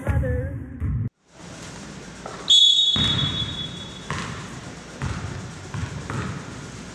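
Several basketballs being dribbled on a hardwood gym floor, the bounces echoing in the large hall. About two and a half seconds in comes a long, high, shrill squeal that lasts about a second and a half.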